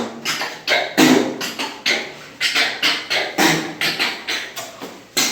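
A person beatboxing an improvised beat with the mouth: a steady rhythm of sharp percussive hits, two to three a second.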